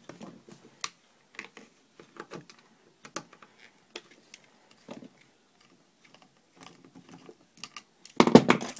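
Light, irregular clicks and ticks of a screwdriver working small Phillips screws out of an airsoft M4's gearbox parts, with a louder clatter of handled metal parts near the end.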